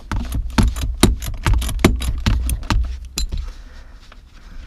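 Ratchet wrench clicking rapidly, about five clicks a second, as the last front seat-rail bolt is loosened. The clicking stops a little past three seconds in.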